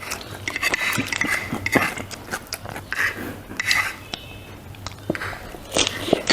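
Close-miked eating: irregular biting and chewing sounds, with short clicks of utensils against a dish. A steady low hum runs underneath.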